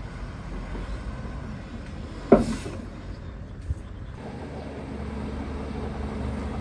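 Heavy diesel construction machinery running with a steady low rumble. A single sharp metallic clank comes a little over two seconds in, then a smaller click. The engine note then steadies and grows a little louder.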